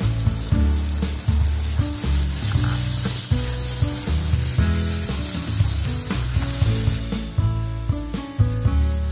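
Onion-tomato masala with freshly added ground spices sizzling in hot oil in a kadai, a metal spatula stirring and scraping it, the hiss thinning about seven seconds in. Background music with low stepping notes plays throughout.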